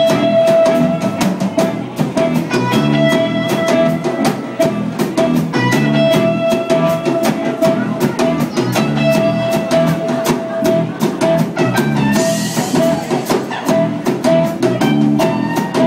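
Live band playing a song: drum kit keeping a steady beat under electric guitar and bass, with a long held note running through it, as heard from within the audience.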